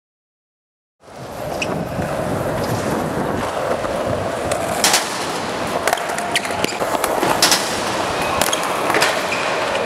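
Skateboard wheels rolling on concrete, starting about a second in, with sharp clacks of the board popping and landing several times in the second half.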